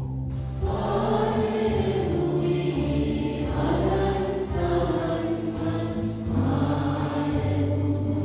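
A group of children singing a hymn together in slow phrases with long held notes, over a steady low accompaniment.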